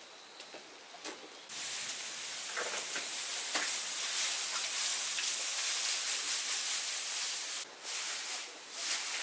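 A steady, high-pitched hiss that starts about a second and a half in and breaks off briefly near the end.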